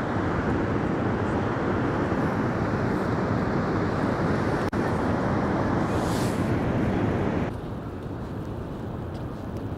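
Steady roar of Niagara's American Falls, a dense rush of falling water. It cuts off abruptly about three-quarters of the way through, leaving a quieter rushing.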